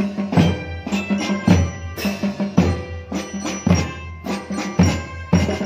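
School drum band playing a march: a row of melodicas holds the tune over bass drum and snare beats about twice a second, with bell lyre notes.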